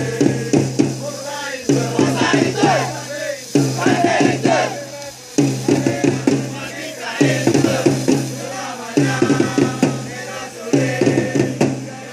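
A crowd of football supporters chanting in unison to a beating drum, repeating a short chant phrase roughly every two seconds.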